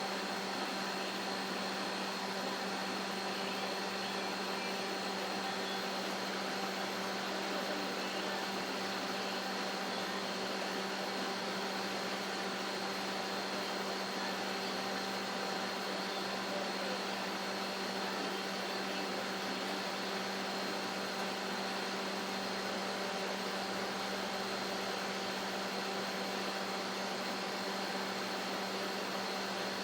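Microwave oven running steadily while cooking fusilli pasta: a constant hum with an even fan whir.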